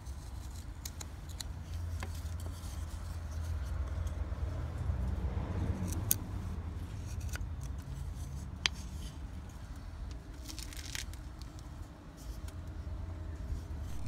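A Scandi-ground carbon-steel bushcraft knife cutting into a wooden stick while carving a square notch: scattered sharp clicks and short scraping cuts as wood is shaved away. A steady low rumble runs underneath.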